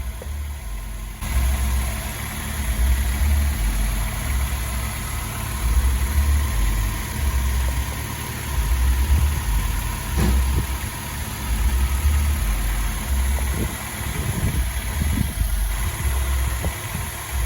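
Toyota Tacoma engine idling with the air conditioning switched on while the system is being recharged with R-134a refrigerant, freshly fitted with a new A/C compressor. A low rumble swells and fades every second or two.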